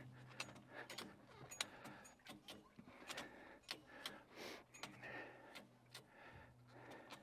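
Faint, irregular clicking, about one or two clicks a second, from a motorcycle tie-down strap being cinched, pulling the bike upright off its kickstand.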